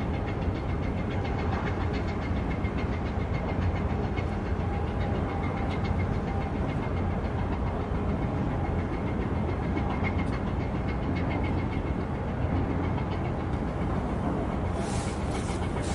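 An engine running steadily: a low rumble with a faint, fast, even ticking through it. A brief hiss comes near the end.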